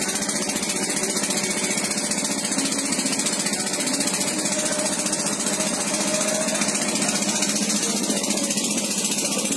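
Boat engine running steadily with a fast, even chugging pulse that does not change.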